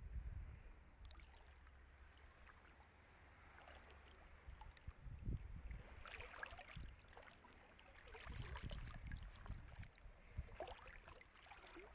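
Faint lapping of calm, shallow sea water at the shore, with a few slightly louder swells of splashing in the second half, over a low rumble.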